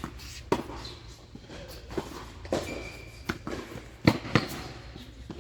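Tennis ball being struck by rackets and bouncing on a hard court: a string of sharp knocks at uneven intervals, the loudest pair close together about four seconds in.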